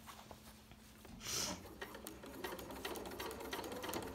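Janome sewing machine starting up and stitching along a hoodie zipper, a quick run of needle strokes that begins about halfway through. A brief swish comes just before it, about a second in.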